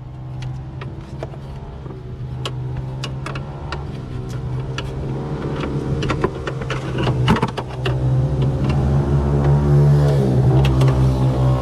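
A steady engine-like hum that grows louder and shifts in pitch near the end, with scattered sharp clicks and knocks of small parts being worked by hand.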